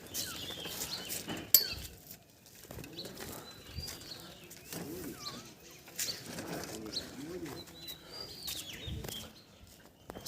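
Birds chirping: short, scattered calls throughout, with a sharp click about a second and a half in.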